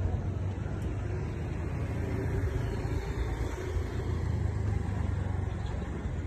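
Steady low rumble of road traffic, with cars and motorbikes moving slowly along the street.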